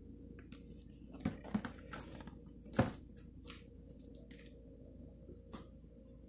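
Cardboard sneaker box and its packing being handled and opened: scattered rustling with a few light knocks, the loudest about three seconds in.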